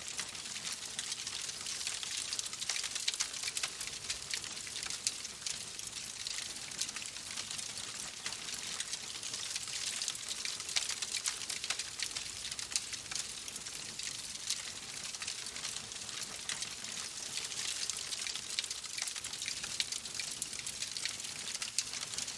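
Oak logs burning in a fireplace: a steady hiss of flame with dense, small crackles and pops throughout.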